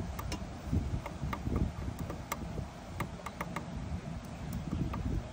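Scattered light clicks of a door-opener control board's small push buttons being pressed while stepping through its menu, over a steady low rumble.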